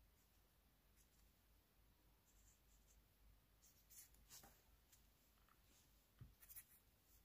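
Faint scratching of a fountain pen nib on paper in short strokes, with louder scratchy handling sounds about four seconds in and a soft knock and scrapes a little after six seconds.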